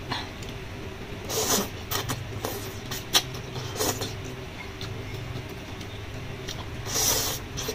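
Noodles slurped and chewed several times, with a few sharp clicks of chopsticks against a bowl, over a steady low background hum.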